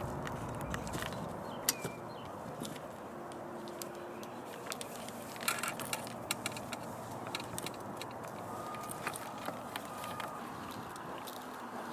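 Work-site ambience: a steady background noise with scattered light clicks and rattles of handling.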